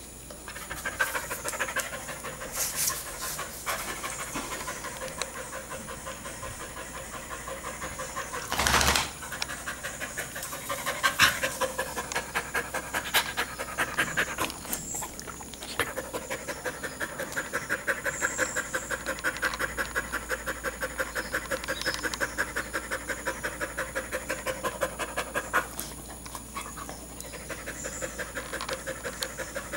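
Dog panting fast and regularly with its mouth open, quick short breaths in and out: the dog is cooling itself after running in summer heat. A couple of brief knocks stand out near the middle.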